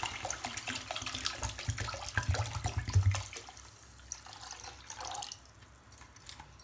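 Water poured from a plastic bottle onto sugar in a kadhai, splashing and crackling as it runs in. The stream thins out and the splashing fades away in the second half.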